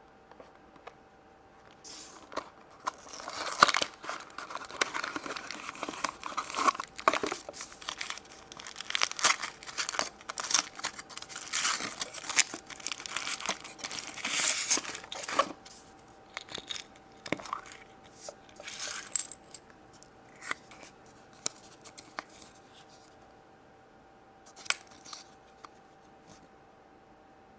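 Wrapper of a surprise chocolate egg being torn open and crinkled, dense crackling for about thirteen seconds, then scattered small clicks and rustles as the contents are handled.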